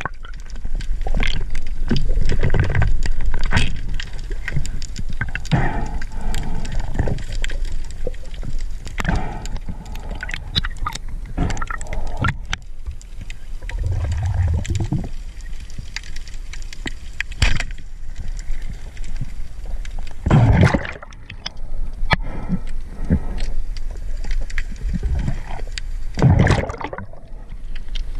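Water gurgling and sloshing around a spearfisherman's underwater camera as he swims, in irregular surges and swishes, with two stronger whooshes in the last third.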